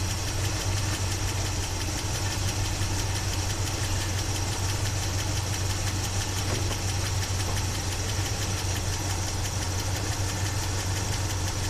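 1976 Chevy Blazer engine idling steadily with its carburetor open and the air cleaner off. The engine speed stays level, with no revving.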